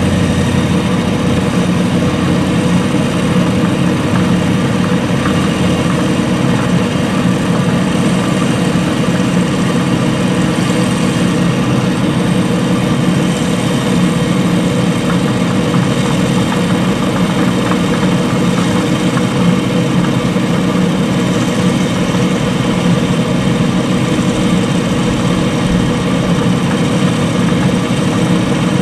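Metal lathe running steadily, with its cutting tool turning down the outside of a bushing held on an expanding arbor.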